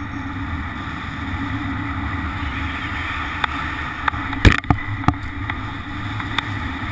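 Wind rushing steadily over a GoPro microphone during a fast speed-flying glide, with a low buffeting rumble. In the second half come several sharp knocks, the loudest a quick cluster about four and a half seconds in.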